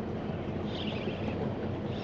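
Small boat's engine idling with a steady low hum, with a brief high wavering sound about a second in.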